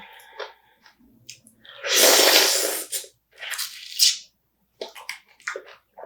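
Close-up eating sounds of spicy marinated raw crab: sucking, slurping and crunching at the shell, with wet smacks. About two seconds in comes one loud breathy burst lasting about a second, followed by shorter ones.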